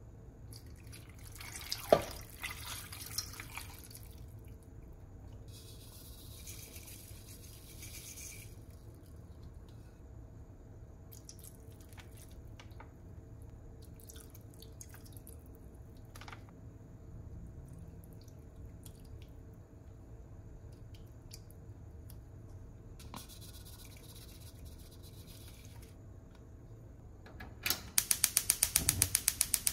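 Liquid is poured into a cooking pot in three short pours. Near the end a gas stove burner's igniter clicks rapidly, about eight clicks a second, as the burner lights. These clicks are the loudest sound.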